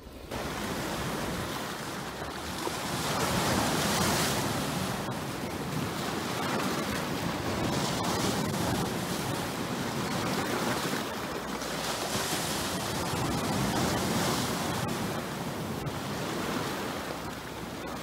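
Sea surf: waves breaking and washing ashore, an even rush of water that swells and ebbs every few seconds. It comes in suddenly just after the start.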